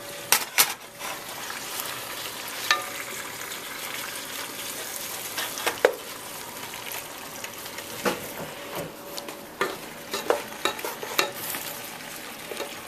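Fresh spinach leaves sizzling in hot oil in a pot as a wooden spoon stirs them, with a steady hiss and scattered knocks of the spoon against the pot.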